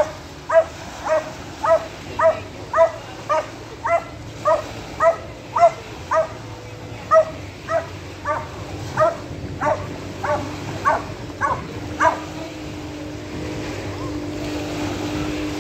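A dog barking over and over, about two barks a second with one short pause, stopping about three-quarters of the way through. A steady low hum takes over after the barking stops.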